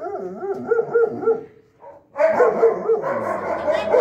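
A dog whining in long, wavering, high cries during a mating mount. The whining breaks off for about half a second near the middle and then starts again.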